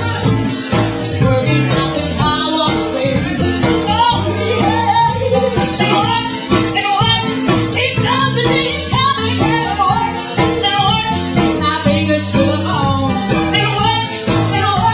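Live band music: a woman singing over concert harp, upright bass and drum kit, with the cymbals keeping a steady, even beat.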